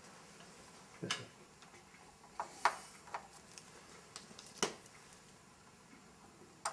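Small hand tools clicking and tapping against a metal model locomotive while screws are fitted to fix its body to the frame: a handful of short, sharp clicks at uneven intervals, the loudest near the middle.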